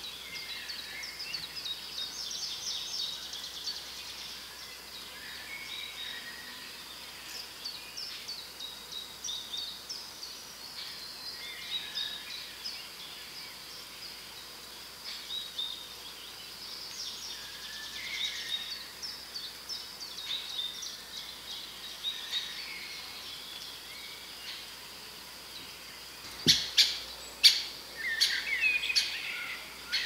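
Several songbirds singing at once in a forest chorus, with many short varied phrases overlapping, over a steady high-pitched tone and faint background hiss. Near the end comes a quick run of loud sharp clicks or knocks, louder than the birdsong.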